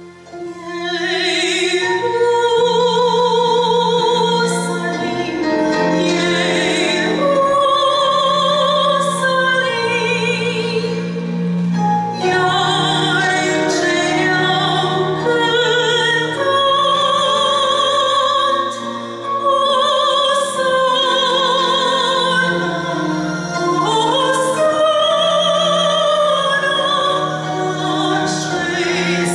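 A woman singing a solo sacred song in Romanian with a wide vibrato through a microphone, over an instrumental accompaniment; her voice comes in about a second in.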